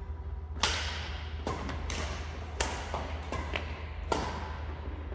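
Badminton rackets striking a shuttlecock in a fast rally: several sharp cracks, a half second to a second apart, each echoing in a large gym hall.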